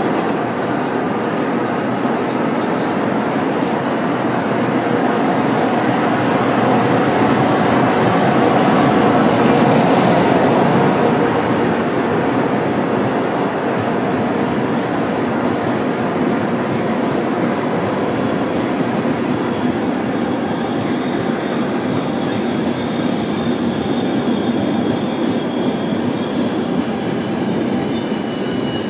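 Locomotive-hauled night train rolling slowly past along the platform, its Nightjet sleeper coaches giving a steady rumble of wheels on rail, loudest about a third of the way in. Faint high-pitched wheel squeals come and go in the second half.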